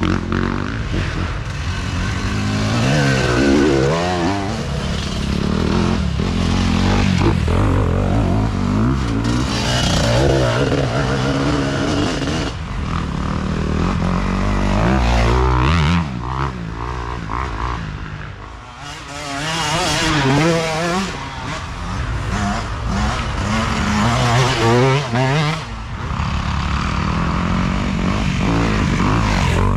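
Dirt bikes racing past one after another, their engines revving up and dropping back over and over as the riders work the throttle and shift, with a brief lull between bikes a little past halfway.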